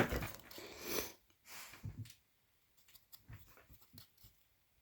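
A small dog's faint noises amid scattered rustles and light clicks, a noisy rustle in the first second the loudest.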